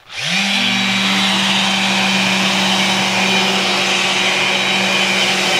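Random orbital sander, with a dust hose attached, switched on against a plywood panel. It spins up in the first half second, then runs with a steady hum and a high whir.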